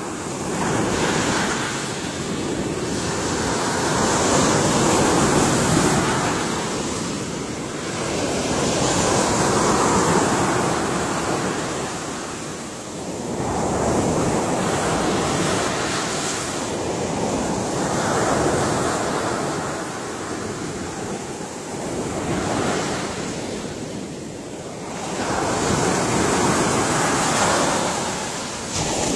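Ocean waves breaking and washing on a shore, a continuous rushing surf that swells and ebbs every few seconds.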